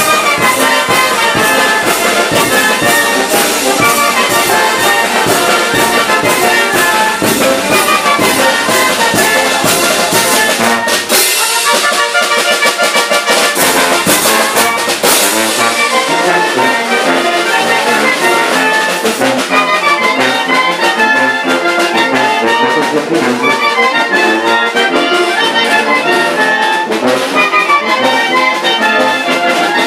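Oaxacan village wind band playing dance music: clarinets, saxophones and trumpets carrying the tune over a sousaphone bass and a steady drum-and-cymbal beat.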